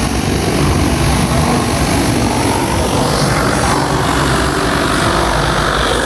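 A high-pressure washer runs steadily, its water jet spraying into the coil of a window air conditioner to clean it.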